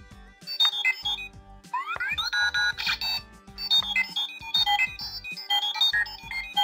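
A run of quick electronic beeps and bleeps in stepped tones, like a computer screen scanning, with a few rising swoops about two seconds in.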